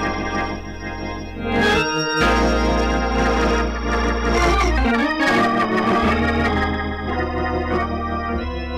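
Organ playing slow sustained chords over a deep bass, changing chord about two, five and seven seconds in. It is the introduction to a gospel song.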